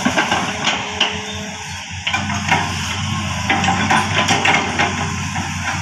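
Hitachi 210F excavator's diesel engine running while its bucket works through felled oil palm trunks and fronds, with repeated knocks, cracks and crunches of the palm wood. The engine's steady drone comes up about two seconds in.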